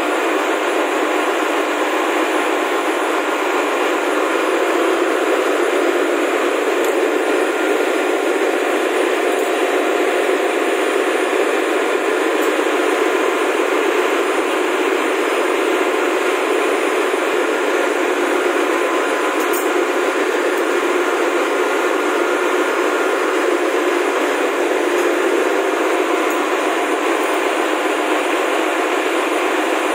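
Loud, steady machinery noise of a ship's engine room, an even din that does not change, with one faint click a little past halfway.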